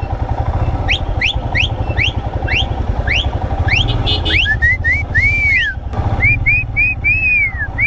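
Herding whistles to move a flock of sheep and goats: a quick series of sharp rising whistles, a couple each second, then from about halfway a run of shorter arched whistled notes. A motorcycle engine runs steadily underneath.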